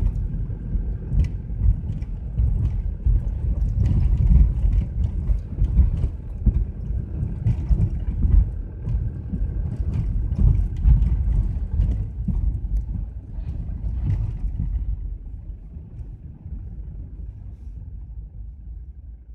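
Mitsubishi Delica L400 van driving: a low rumble with scattered knocks and rattles that dies away over the last few seconds.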